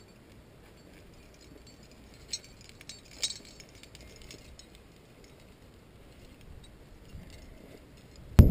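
Climbing hardware clinking faintly a few times, karabiners and gear knocking on a harness rack. A sudden loud, low noise cuts in just before the end.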